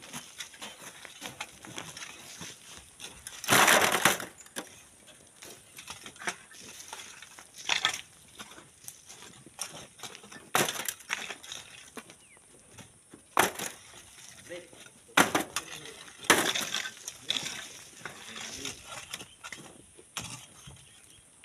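Sand and stone being dug and knocked loose by hand at a sand cliff: irregular crunching and scraping strikes. The loudest is a longer crunch of about half a second, roughly three and a half seconds in.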